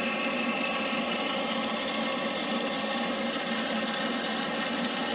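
Johnson bandsaw running with its blade cutting through 6061 aluminum rectangular tube, a steady, even mechanical sound.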